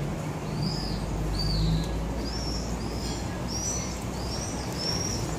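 A small bird chirping over and over, short high chirps about twice a second, over a low steady rumble of outdoor background noise.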